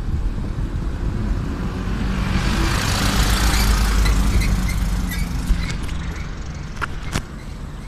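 A motor vehicle driving past close by, its engine and tyre noise swelling to a peak about three seconds in and then fading away. Two sharp clicks near the end.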